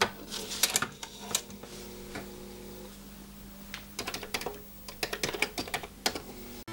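Keystrokes on a computer keyboard: a run of quick typing at the start and another from about four seconds in, over a low steady hum.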